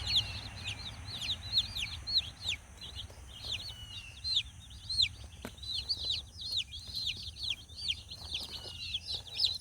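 Cornish Cross chicks peeping nonstop: a chorus of high, short, falling peeps overlapping several times a second.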